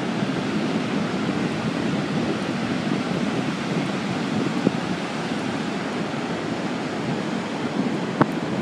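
Ocean surf breaking offshore, a steady wash of noise, mixed with wind on the microphone.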